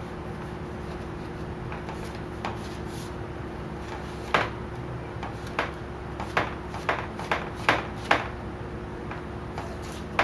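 Short rubbing strokes over a vinyl wrap on a plastic Jeep grille as the edges are pressed down and bubbles worked out: quiet at first, then about seven quick strokes in a row from about four seconds in, over a steady low hum.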